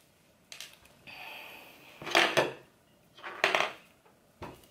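Small objects being handled close by: a few short clinks and knocks, the loudest about two seconds in, with a faint hiss just before it.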